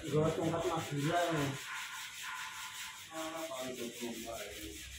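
A paintbrush rubbing in strokes against an overhead steel beam. A man's voice comes in twice, loudest at the start and again around three seconds in.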